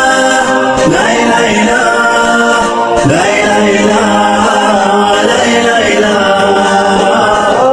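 A cappella vocal music: layered voices singing a melody with no instruments.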